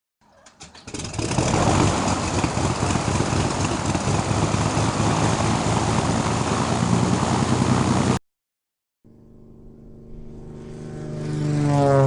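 An aircraft engine sputters and catches, then runs loud and steady until it cuts off abruptly. After a short silence, an aircraft approaches and passes close by, growing louder to a peak near the end with its engine tone falling in pitch as it goes past.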